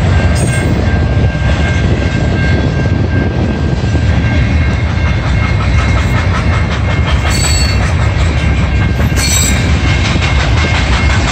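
Freight cars of a long freight train rolling past close by: a loud, steady rumble with the wheels clacking over rail joints and a faint, thin, high wheel squeal.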